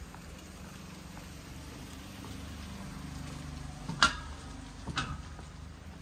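Two sharp clinks or knocks about a second apart, the first the louder, over a steady low hum.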